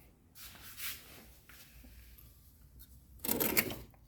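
Handling noises as the front shock-absorber strut is worked out of the wheel arch: a soft rustle about half a second in, then a louder scraping clatter of metal about three seconds in.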